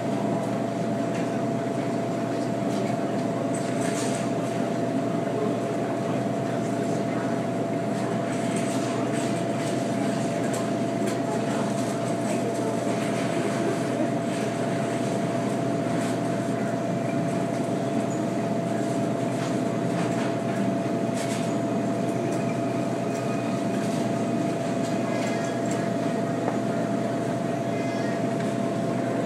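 Steady machine hum with a constant mid-pitched tone over a broad noisy rumble, unchanging throughout, with a few faint clicks.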